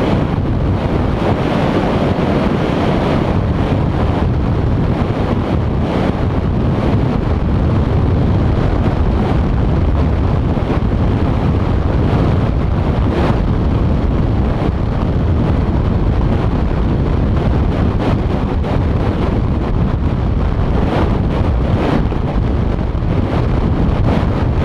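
Steady wind buffeting the microphone of a camera on a moving vehicle, with road noise from the vehicle underneath. A few faint knocks from bumps in the road.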